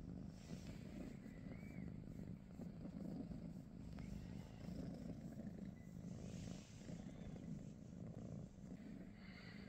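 British Shorthair kitten purring steadily while being stroked.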